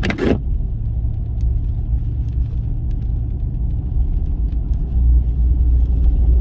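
Vehicle engine and drivetrain rumbling steadily, heard from inside the cab, while driving through deep snow.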